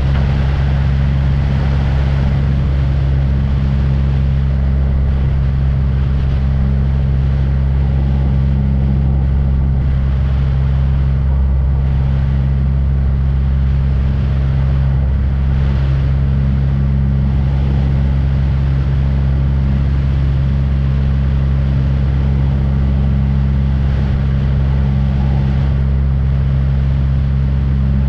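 Aircraft engine droning steadily, an even low hum that holds the same pitch throughout.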